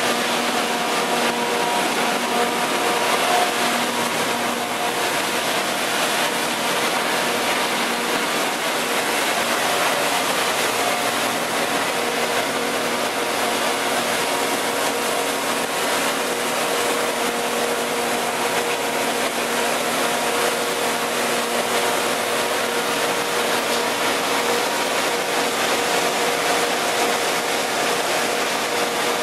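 Hammer-mill sawdust crusher running steadily under load while a belt conveyor feeds wood chips into it to be crushed into sawdust. It makes a loud, even machine noise with a few constant hum tones running through it.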